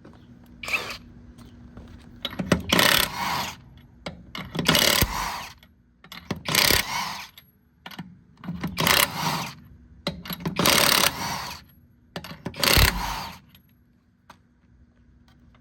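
A jack being pumped to lift a pickup truck: six regular rasping strokes about two seconds apart, each lasting about a second, over a faint steady hum.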